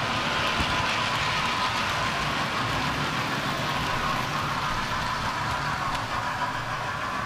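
Model railway freight train running along the track: a steady running noise of wheels on rails and the locomotive's motor, easing slightly after the first couple of seconds as the wagons move away.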